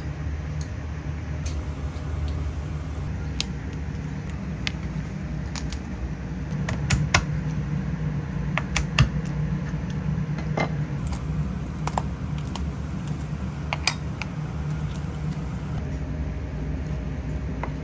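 Kitchen work sounds: scattered light clicks and taps of utensils and dishes being handled, over a steady low hum.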